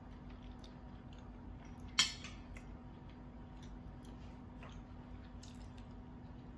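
A single sharp clink of cutlery against a plate about two seconds in, then a few faint small clicks, over a steady low hum.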